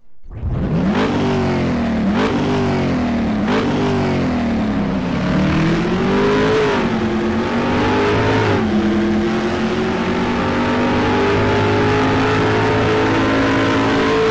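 Car engine revved in three quick throttle blips, then accelerating through the gears. The pitch climbs, drops twice as it shifts, and settles into a steady high drone.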